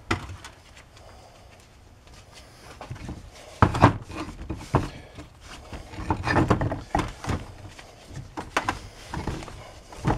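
Workbench handling sounds: scattered light knocks of a metal hub and wooden blocks being moved on the bench, with rubbing as a rag is wiped around the empty wheel-bearing bore. The knocks come in clusters, the busiest stretch a little past the middle.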